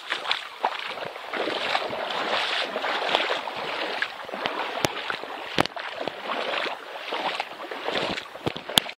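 Footsteps wading through a shallow stream: continuous splashing and sloshing of water, swelling and falling with each step, with a few sharp clicks, the sharpest near the end.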